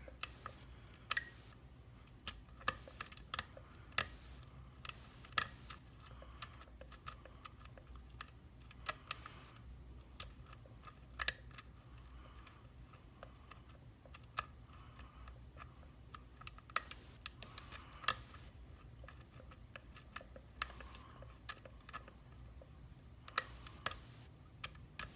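Lock pick and tension wrench working the security pins of an Iseo euro cylinder: scattered sharp little clicks at irregular intervals as pins are lifted and set, over a faint low hum.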